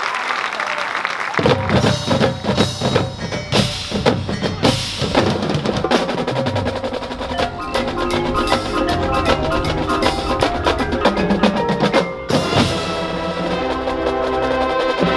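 Marching band music starts about a second and a half in, after the last of the crowd's applause. Marimbas and other mallet instruments and drums play sharp struck accents, and sustained wind chords come in about halfway through.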